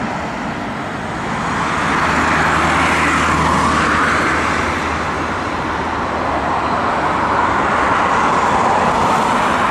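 Jet engines of a departing airliner running at high thrust: a loud, steady rushing noise that grows louder about two seconds in and swells again near the end.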